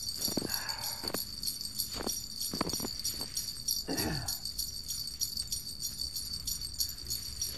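Jingle bells in a steady, unbroken high jingle, with a few scattered knocks underneath.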